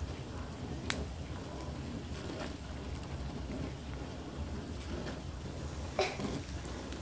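A cat licking and chewing soft cantaloupe flesh: faint, scattered wet clicks and smacks over a low hum, with one sharp click about a second in and a short louder sound about six seconds in.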